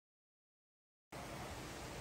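Dead silence, then about a second in a steady outdoor background hiss with a low rumble starts abruptly.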